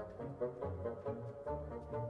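Orchestral background music with brass and strings.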